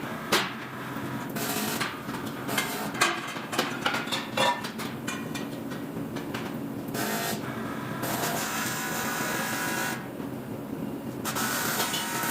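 Metalworking sounds: a run of sharp knocks and clicks of parts being handled, then a few seconds of steady rasping noise from a tool working the metal, which stops briefly and starts again near the end.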